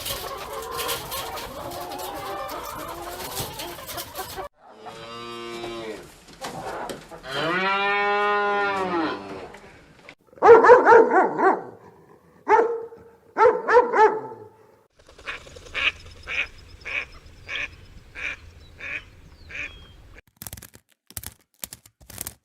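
A run of different farm animals calling in turn. First a noisy stretch, then two long, drawn-out calls that bend in pitch, like a cow mooing. Then a few loud, harsh honking calls, a run of short calls about two a second, and some sharp clicks near the end.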